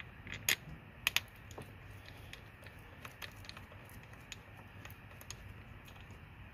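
Small sharp clicks and taps of brake caliper parts and tools being handled. There is a louder click about half a second in and a close pair just after a second, followed by faint scattered ticks.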